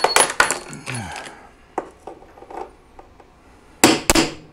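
Hammer blows on a steel drift punch, driving at a ground-off steel rivet in a snowmobile's aluminum tunnel bulkhead: a quick run of sharp metallic strikes, a few lighter taps, then two more hard strikes near the end. The rivet is not budging under hand punching.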